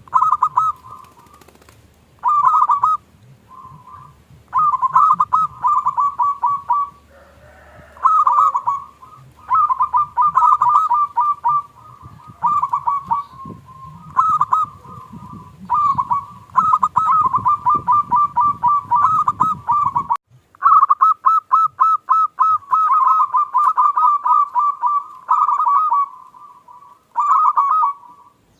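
Zebra doves (perkutut) cooing: bouts of rapid, staccato, pulsed notes, each bout lasting one to three seconds and repeated with short pauses.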